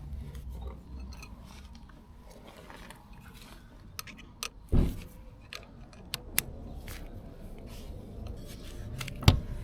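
Small metallic clicks and clinks of a motorcycle chain press-and-rivet tool being worked on a new chain's joining link, with a heavier knock about five seconds in and a sharp click near the end.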